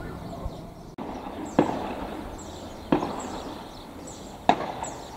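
Three distant shotgun shots, about one and a half seconds apart, fired at turtle doves.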